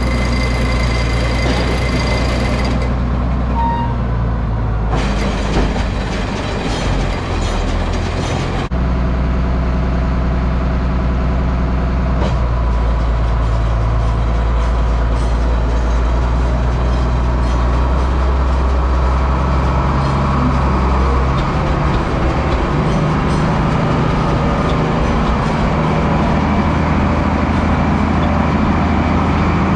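International 1066 tractor's diesel engine running steadily, its note changing abruptly several times.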